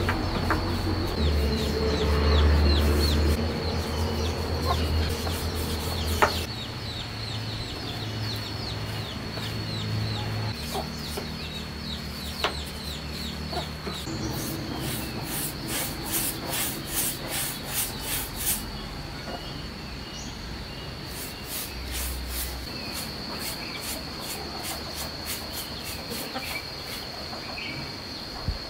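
Chickens clucking, over insects calling: a steady high trill throughout and bursts of rapid pulsing chirps in the second half.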